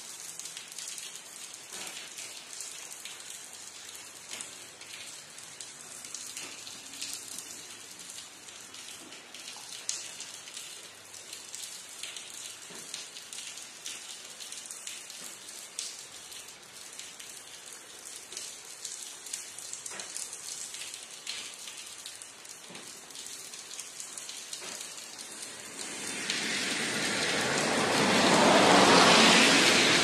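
Steady rain falling, with single drops clicking close by. Near the end a much louder rushing sound swells up, peaks and starts to fade.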